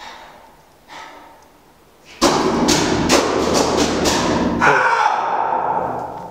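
A sudden loud burst of rapid thumps and banging about two seconds in, lasting about two and a half seconds before fading.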